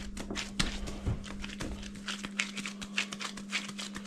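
Nitrile-gloved hands shaping a piece of pie dough into a ball on a wooden board: irregular soft taps, pats and glove rustles, over a steady low hum.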